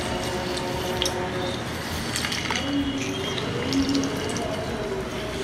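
Lemon juice trickling from a hand-held metal lemon squeezer into a steel mixer jar, with a few small clicks, over soft background music.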